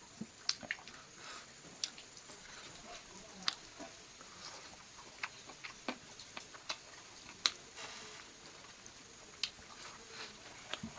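Close-miked eating sounds of someone chewing chicken: irregular wet clicks and smacks, a few sharper than the rest, with no steady rhythm.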